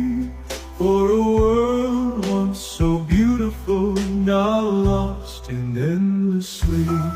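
Background song: a man singing long held notes over a steady bass line and drum hits.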